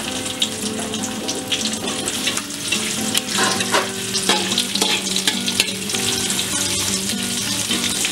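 Chopped shallots and garlic sizzling in a little hot oil in a wok, stirred with a metal spatula: a steady hiss with frequent sharp scrapes and clicks of the spatula against the wok.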